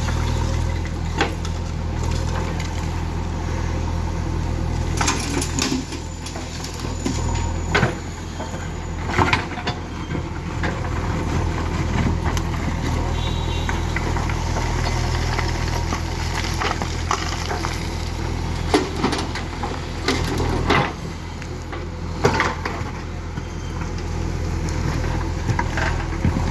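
Diesel engine of a JCB 3DX backhoe loader running steadily under work, its note dipping briefly twice, with scattered clanks and knocks as waste is loaded into a tractor trolley.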